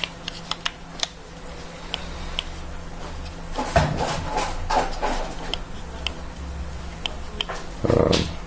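Small sharp clicks, taps and rustling as batteries and a battery sled are handled and fitted into a vape mod, with a louder rustle near the end.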